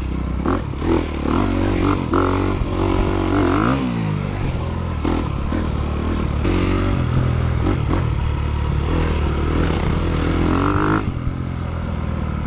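Dirt bike engine revving hard, its pitch climbing and falling again several times as it accelerates and lets off, with a falling sweep about four seconds in and the sound dropping away near the end.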